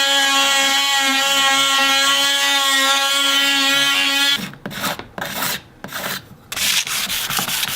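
An electric sander runs with a steady whine, then cuts off about four seconds in. Hand sanding follows: sandpaper or Scotch-Brite rubbed in short scraping strokes over the varnished wooden hull, quickening into near-continuous rubbing toward the end.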